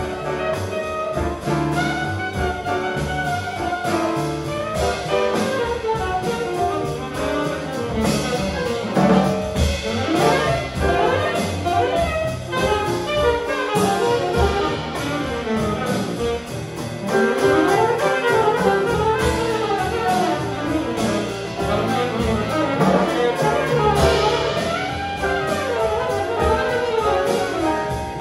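Saxophone improvising a jazz solo in fast, winding runs, over piano, double bass and drums in a live small-group performance.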